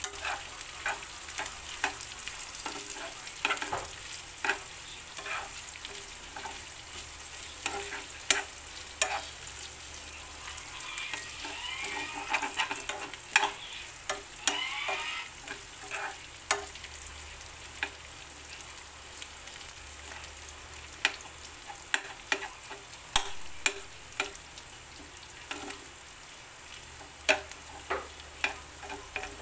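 Ground pork and onions sizzling in a frying pan while a metal spoon stirs them, with frequent sharp clicks and scrapes of the spoon against the pan.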